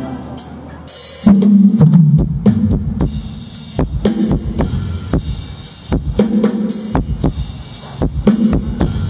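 Drum kit of a mor lam band playing, with bass drum, snare and cymbal hits and low bass notes under them. After a quiet first second the drums come in with a loud hit.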